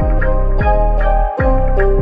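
Background music with a steady, quick beat and a light tinkling melody.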